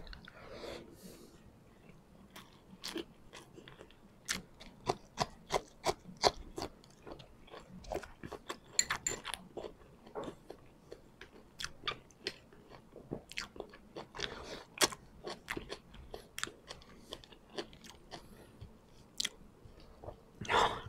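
A man chewing a mouthful of rice and pork adobo eaten by hand: an irregular run of sharp smacking clicks, several a second.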